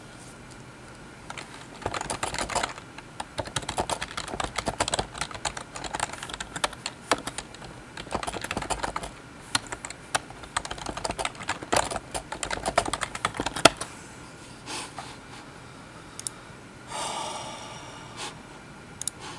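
Typing on a computer keyboard: a quick, irregular run of keystroke clicks for about twelve seconds, then a few single key presses and a short pitched sound near the end.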